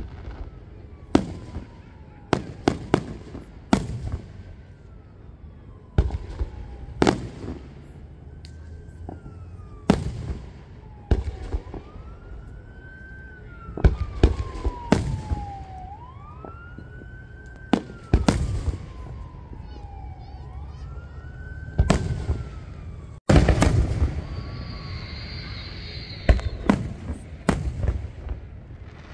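Aerial firework shells bursting in sharp booms at irregular intervals, a second or more apart, with a longer, louder run of bursts beginning about two-thirds of the way through. Behind them an emergency-vehicle siren wails, slowly rising and falling in pitch.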